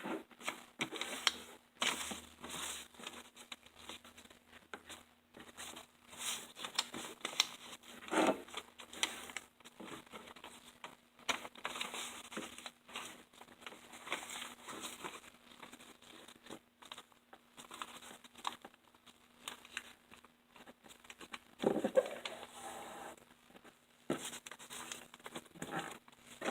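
Half a sheet of loose-leaf paper being folded and creased by hand, with irregular rustling and crinkling.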